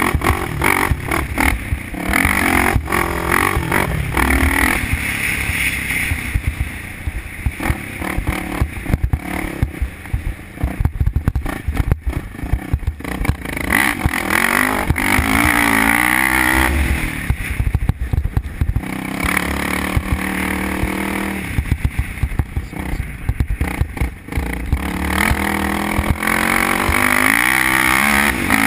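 Honda TRX450R quad's single-cylinder four-stroke engine running hard, its pitch rising and falling repeatedly as the throttle is worked through the gears at speed. Heavy wind rumble and jolts on the onboard microphone come through underneath.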